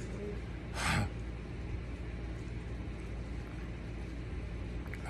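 A man's single sharp breath blown out through the mouth about a second in, against the burn of raw Thai bird's eye chilies, over a steady low hum.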